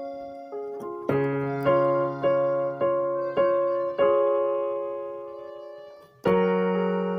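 Background piano music: a slow melody of struck notes and chords, each dying away. About 4 s in, a chord rings on and fades out, and a new loud chord comes in near the end.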